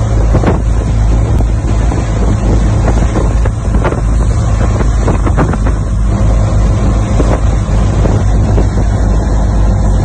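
Motorboat engine running steadily under way, a loud low hum, with wind buffeting the microphone and the rush of the wake.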